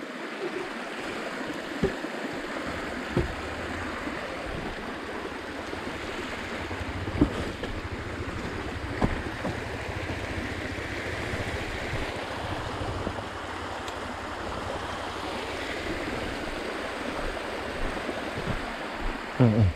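A small mountain stream rushing steadily down a rocky channel, with a few short knocks scattered through.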